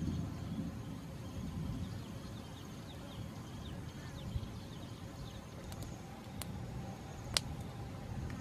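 Wood campfire of large burning logs, with a steady low rumble of the flames and a few sharp crackles, one loud pop about seven seconds in.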